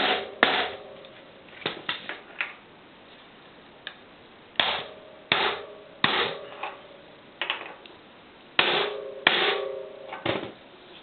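Hammer blows driving a new sealed cartridge bearing into a Hope XC hub shell: about a dozen sharp metallic strikes in irregular groups, each leaving a short ring.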